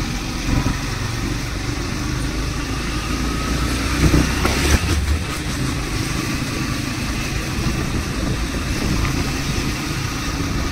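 A motor vehicle's engine runs with a steady low rumble, swelling louder for a moment about four seconds in.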